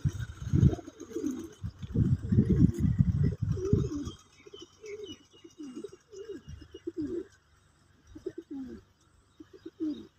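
Domestic pigeons in a loft cooing, several birds calling over one another. The calls are dense and loud for the first four seconds, then thin out to scattered coos.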